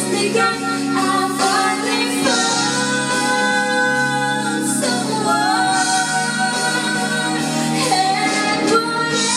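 A woman singing a slow ballad over a backing track, with long held notes that waver in pitch.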